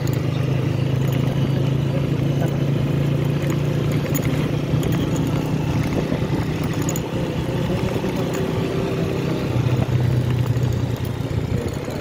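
Motorcycle engine running while being ridden: a steady low drone that swells briefly about ten seconds in.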